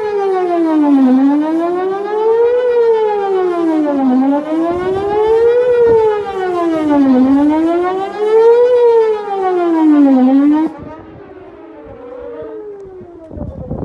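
Whelen WPS-4008 electronic outdoor warning siren sounding a wail tone that rises and falls about every three seconds. Its rotator is broken, so the speaker array stays fixed instead of sweeping round. About ten seconds in the loud tone cuts off, leaving a more distant siren wailing faintly, and a low rumble comes near the end.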